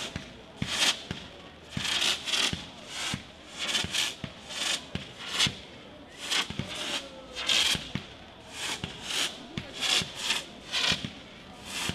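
Fireworks display: a quick run of short hissing bursts, one or two a second, as stars rise and burst, with short sharp cracks in between.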